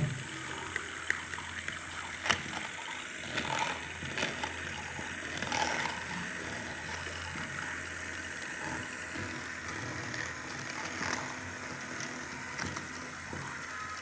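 LEGO WeDo 2.0 motor running steadily, spinning a stirring rod in a plastic cup of liquid, with a few light clicks scattered through.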